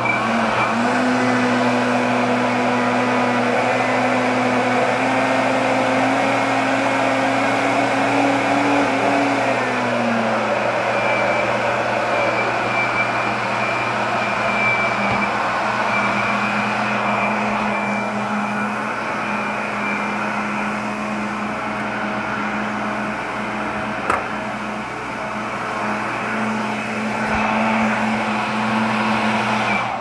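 Britânia BLQ1350 Turbo Inox 1200 W six-blade blender running continuously, blending carrot cake batter of oil, eggs, carrot and sugar. Its motor pitch rises slightly, then drops a little about ten seconds in and holds steady until it is switched off at the end.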